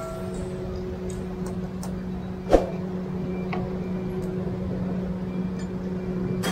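Charcoal kebab grill being worked: metal skewers clink now and then over a steady low hum, with one loud metal clank about two and a half seconds in.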